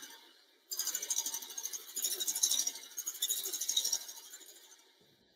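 Electric hand mixer beating very cold heavy cream in a freezer-chilled steel bowl. It is heard as a thin hiss with a fast, even rattle that starts under a second in and fades out near the end. The cream is just starting to thicken.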